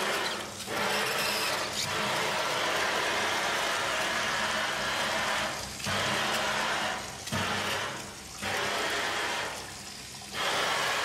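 Water from a commercial pre-rinse faucet, its spray valve and swing spout, running and spraying into a stainless steel sink as a steady hiss. The hiss dips briefly several times as the flow changes, the longest dip about a second before the end.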